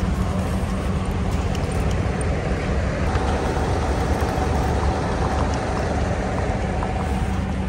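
Steady low rumble of vehicle engines idling in a service-area car park, with a constant hum under it. A higher steady hum joins about three seconds in.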